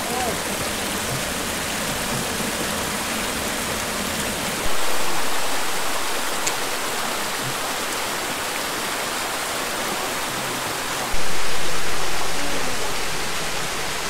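Steady rush of the Yellowstone Prong, a mountain stream cascading down bare rock slabs. Twice, about five and eleven seconds in, it abruptly gets louder and then eases back down.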